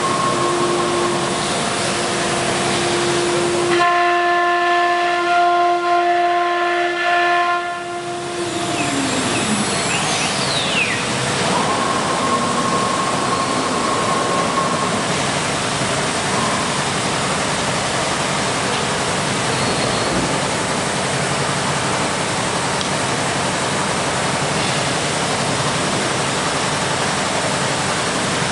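CNC router running: the spindle's steady high whine sits over a constant rushing hiss. About eight seconds in, the whine glides down in pitch as the spindle slows. Near the end a rising whine starts as it spins up again.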